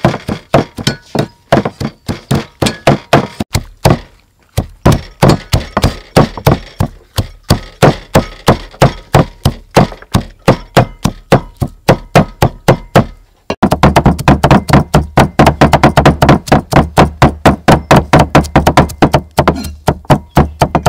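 Cleavers rapidly chopping on thick round wooden chopping boards, mincing dried red chilies and garlic: quick steady knocks, about five a second, with a short pause about four seconds in. About two-thirds of the way through the chopping gets louder, with a deeper thud.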